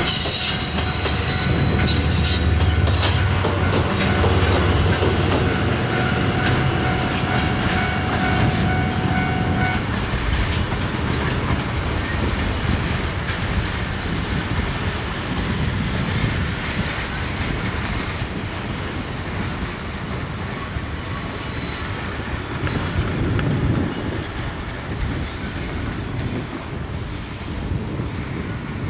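Diesel freight train passing: a deep locomotive engine rumble with a steady high squeal for the first ten seconds or so, then freight wagons rolling by with a clickety-clack over the rail joints, slowly fading.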